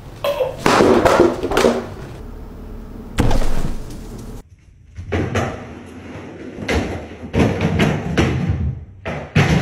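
A series of thuds and knocks, with music underneath.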